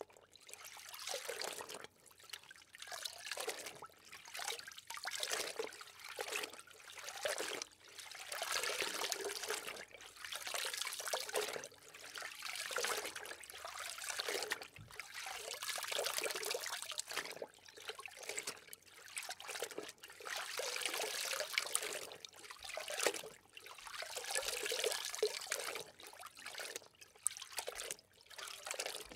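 Water rushing and bubbling against an underwater camera, swelling and falling every second or two.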